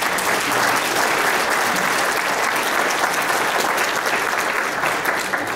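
Audience applauding, steady and then starting to thin out near the end.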